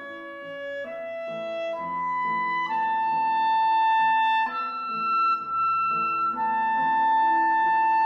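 Film score music: a clarinet plays a slow melody of long held notes over piano and low bass notes.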